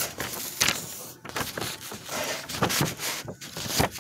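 Lined notebook paper rustling and crackling as it is handled and held up close to the microphone, with irregular small knocks and scrapes.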